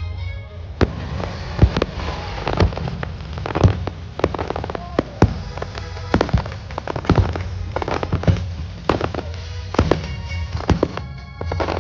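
Fireworks going off in quick, irregular succession, many sharp bangs one after another, with music playing underneath.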